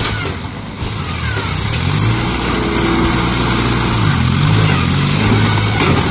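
Compact tractor engine running, its pitch dipping and rising briefly about four seconds in, over the rush of water gushing out of a breached above-ground swimming pool.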